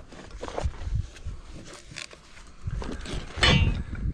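Handling noise of a long wooden board being carried and set against timber framing: irregular knocks, bumps and rustles, with one louder rasping scrape near the end.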